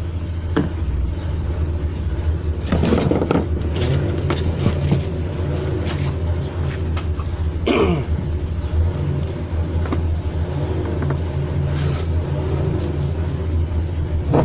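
Steady low mechanical rumble, with a few short clatters of engine parts being moved aside on the bench.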